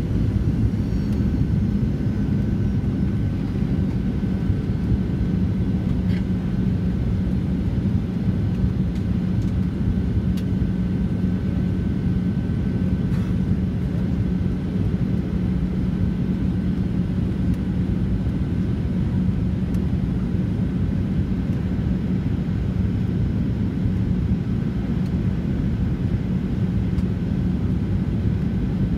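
Steady cabin noise inside a Boeing 737-700 on approach: the rumble of its CFM56-7B turbofan engines and the rush of air over the fuselage, with a steady low drone and a faint high whine held throughout.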